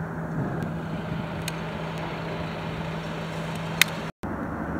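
Steady engine drone with a low hum over outdoor street noise. A sharp click comes near the end, just before the sound briefly drops out.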